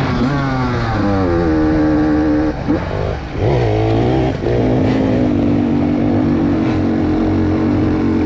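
Two-stroke enduro dirt bike engine accelerating through the gears, its pitch climbing and dropping back at each shift, then held at a steady throttle for the last few seconds.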